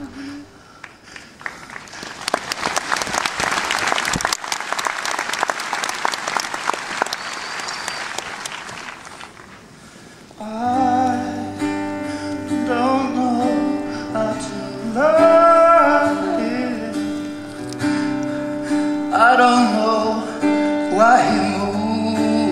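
Audience applauding for about nine seconds after a song ends. About ten seconds in, a guitar and keyboard accompaniment starts and a man sings over it.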